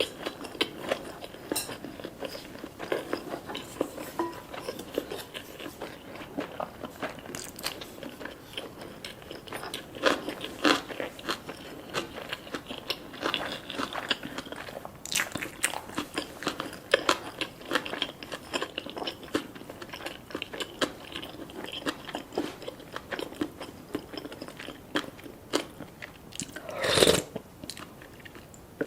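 Close-miked eating: a person biting and chewing food, with many crisp crunching clicks throughout and one louder, longer noise near the end.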